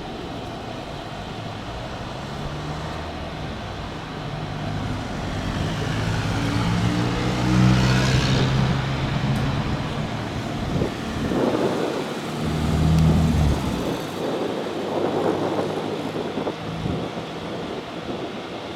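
Jet airliner on its takeoff roll passing by at full power. The engine noise builds to a peak about eight seconds in, its whine sliding down in pitch as it goes past, then swells again and fades away.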